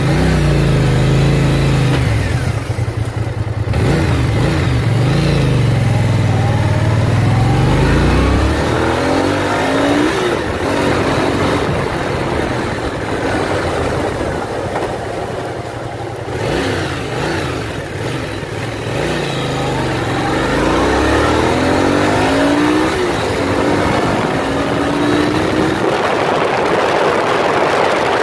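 Dirt bike engine accelerating through the gears, its pitch climbing and then dropping back with each shift several times over, with a steady rushing noise underneath.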